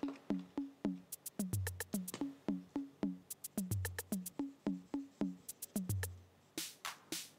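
Lo-fi background music with a drum-machine beat. Short plucked-sounding notes fall on each beat, a deep bass note comes about every two seconds, and quick high ticks run over the top. A brief hissing swish comes near the end.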